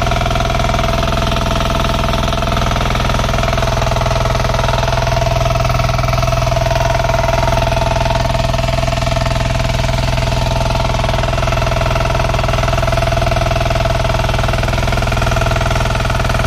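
Motor-generator set running steadily with a constant hum, powering an electric fan heater running close by.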